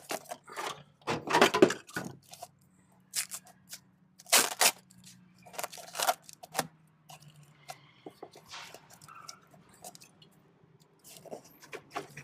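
Hands pulling apart engine-bay wiring, spark plug wires and zip-tied plastic: scattered snaps, cracks and rustles, with a few louder bursts of handling in the first half.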